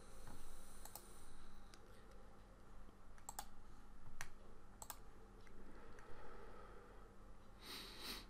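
A few sharp clicks, about a second apart, over a steady low hum, with a short high swishing burst near the end.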